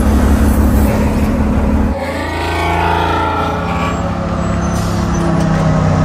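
Tank engine running steadily, its sound changing abruptly about two seconds in, with a brief wavering pitched sound just after.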